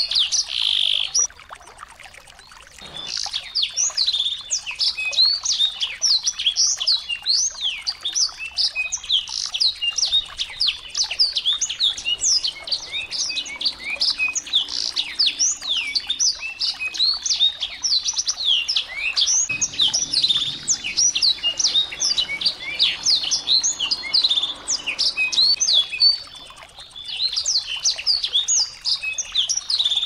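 A small songbird singing a fast, continuous twittering song of high, quick chirps and sweeps. The song breaks off briefly about a second in and again near the end.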